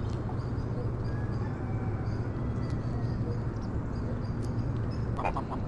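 Domestic geese gabbling with a short run of low honks about five seconds in, over a steady low rumble.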